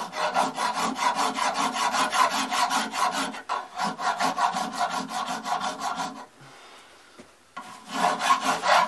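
Hand file rasping across a cast brass long-rifle butt plate in steady back-and-forth strokes, filing out pits left in the casting. The strokes stop about six seconds in and start again a second and a half later.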